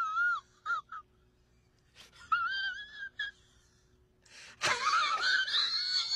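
A tabby cat yowling with its mouth wide open while another cat lies across it. There are wavering, wailing cries: one trails off in the first half second, another comes about two seconds in, and a louder, rougher one comes near the end.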